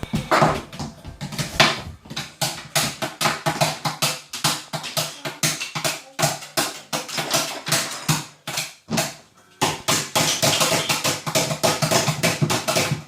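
Rapid, repeated banging on something hard, about four or five knocks a second, with a short break about nine seconds in.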